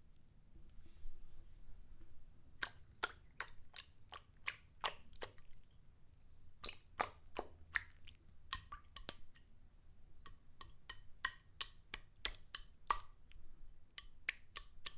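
Small, sharp water splashes coming in quick, irregular runs, starting about two and a half seconds in, with brief pauses between runs.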